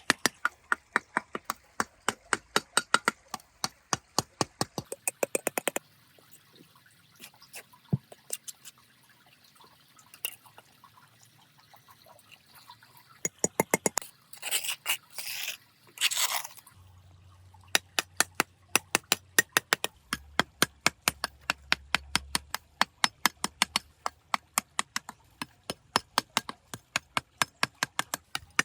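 Sharp, evenly spaced taps, about four a second, breaking off for a while midway, where a few short noisy scrapes come, then starting again.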